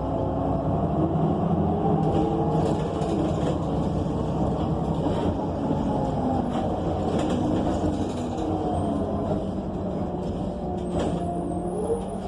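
Inside a transit bus under way: the Cummins Westport ISL G natural-gas engine and Allison automatic transmission running steadily, their pitch slowly rising and falling with road speed, with a clear rise and drop near the end.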